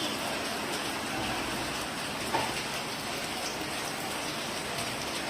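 Steady heavy monsoon rain falling and splashing on surfaces.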